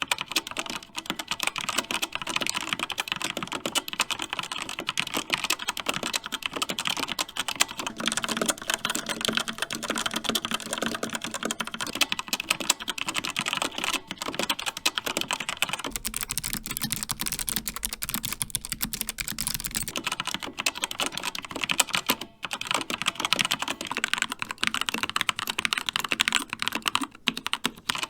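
Fast continuous typing on a series of mechanical keyboards, changing about every eight seconds. First come two boards with linear Outemu Red switches (Rapture X-Ray, then CZC Nightblade). About halfway in comes a Logitech G915 with GL Clicky switches, which sounds brighter and clickier. Near the end comes a Keychron K2 with linear Gateron Red switches.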